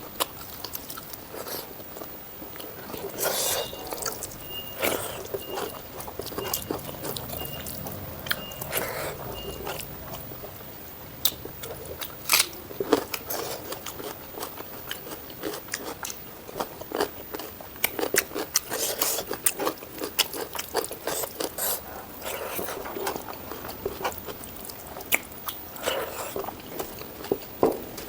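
Close-miked eating of a meal of mutton curry, rice and raw salad: repeated crunching bites and chewing with many sharp wet mouth clicks.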